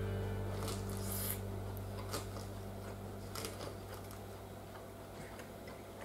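A metal fork clicking and scraping against a salad bowl in short, scattered touches as lettuce is gathered onto it, over a low held note of background music that slowly fades out.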